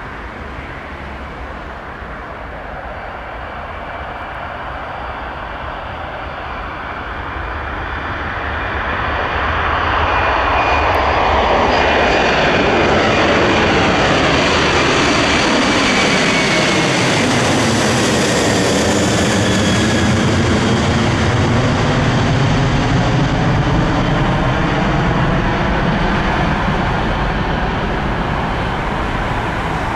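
Airbus A330-200 jet airliner's twin GE CF6-80E1 turbofans at takeoff power as it climbs out and passes close overhead. The noise swells to its loudest about ten seconds in, with whining tones falling in pitch as it goes by, then eases to a lower rumble as it climbs away.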